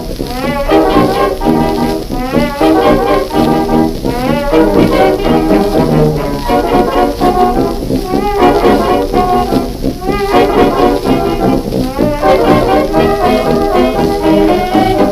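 Lively brass-led music, with short wavering, sliding notes every couple of seconds.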